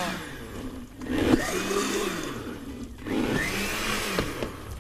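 Countertop blender blending a thick persimmon and guava fruit juice. It runs in three short bursts, its motor spinning up and winding down each time.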